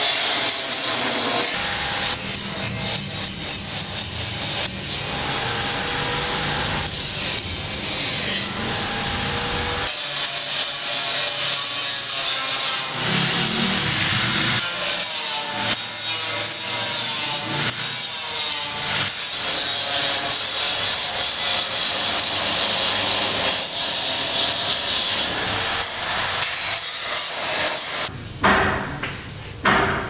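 Construction tool work: sawing and rubbing noise from hand and power tools, with a short high whine rising in pitch several times, the way a power tool spins up.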